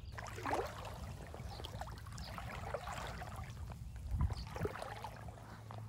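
Wind rumbling on the microphone over irregular rustling and the trickle of a stream.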